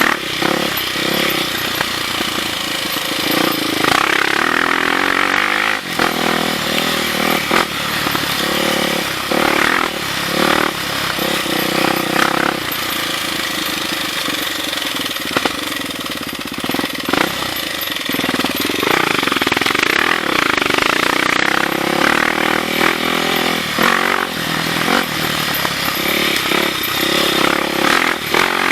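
Off-road motorcycle engine running and revving up and down as it rides along a dirt trail.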